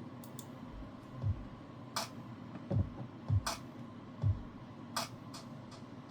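A few soft, low thumps and about three sharp clicks, irregularly spaced, like objects being handled and set down on a hard surface.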